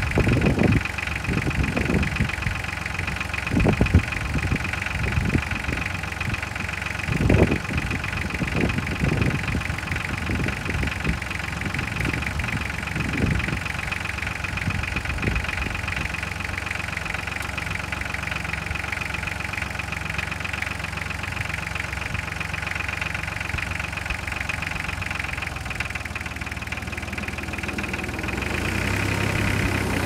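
Massey Ferguson 1020 compact tractor's diesel engine running steadily as it powers a Hakki Pilke firewood processor, with irregular knocks and clatter of slab wood being processed in the first half. Near the end the engine note changes and grows louder.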